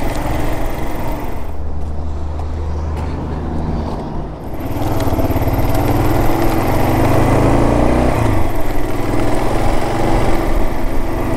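Kawasaki KLR 650 single-cylinder engine running at low revs, then picking up about four and a half seconds in as the motorcycle accelerates away, and running on steadily. Wind noise is on the microphone.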